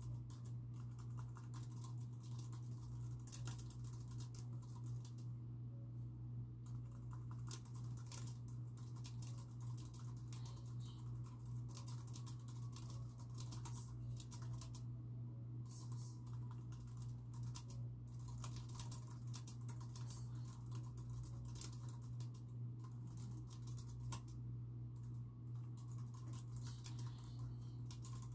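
Typing on a computer keyboard: quick runs of key clicks in flurries with short pauses, over a steady low hum.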